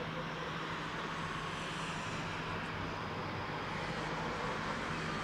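Steady distant city noise with a low, even hum underneath, holding level throughout.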